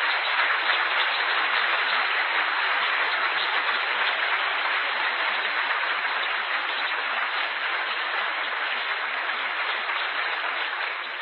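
Lecture-hall audience applauding, dense and steady.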